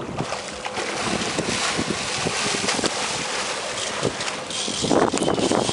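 Wind buffeting the microphone over the rush and splash of sea water along the boat's hull, growing louder near the end.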